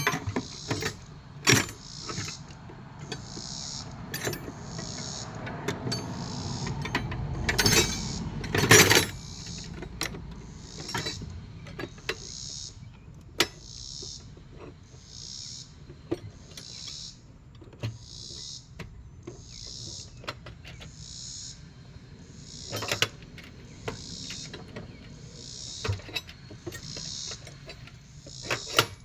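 Tool chest drawer rolling on its slides and shutting with a knock, with metal tools clicking and clinking as they are handled. Under it a cricket chirps steadily at about one high chirp a second.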